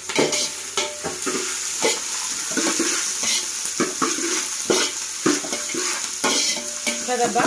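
Long steel ladle stirring and scraping sliced onions and green chillies frying in oil in a large metal pot. A steady sizzle is cut by repeated short metal scrapes against the pot.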